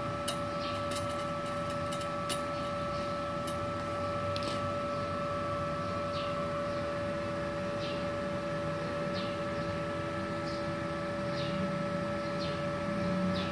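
Multipro TIG 200A-SA IGBT DC inverter welder switched on and idling: a steady hum with a high whine, and a few faint ticks.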